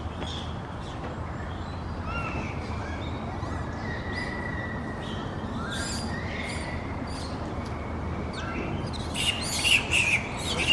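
Japanese macaques calling in a troop: short, high, whistle-like gliding calls over a steady background hum, with a louder cluster of higher, harsher calls near the end.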